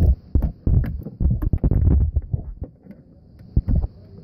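Ratchet wrench with a long extension turning a bolt on the auxiliary water pump bracket: irregular clicks and knocks of the tool on metal, with low thumps, pausing briefly about three seconds in.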